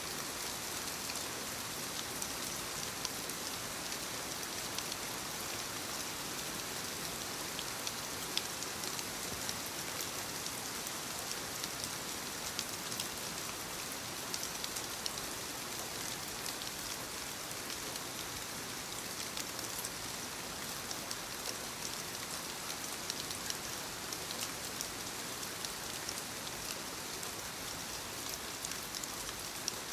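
Soft steady rain falling on leaves: a continuous hiss with many small, close drop taps.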